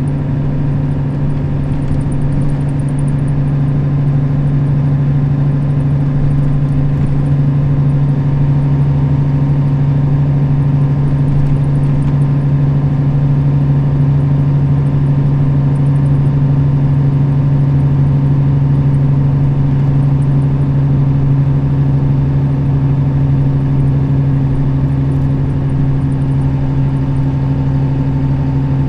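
Nissan Diesel KL-RA552RBN route bus's diesel engine running steadily under way, a constant low drone with no gear changes or braking.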